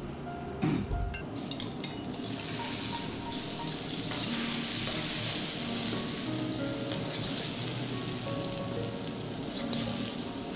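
Seasonings frying in hot oil in a wok while a metal spoon stirs them: a steady sizzle that builds up about a second and a half in. A single low thump comes just before the sizzle rises.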